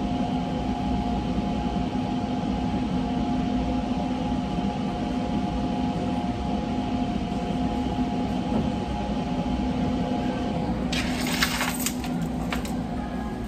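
Steady machine hum with a few constant tones, like an electric fan or motor running. About eleven seconds in, it is joined by clicks and rustling as the phone is picked up and handled.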